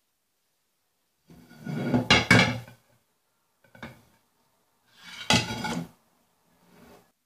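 A stainless steel pot knocking and scraping against a ceramic serving plate as the pot is turned upside down onto it and lifted off. There are two loud bouts of clatter with sharp knocks, about two and about five seconds in, and two softer clinks between and after them.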